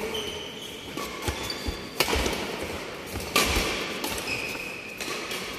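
Badminton rally: sharp cracks of rackets striking a shuttlecock, the two loudest about two and three and a half seconds in, with short squeaks of shoes on the court mat, echoing in a large hall.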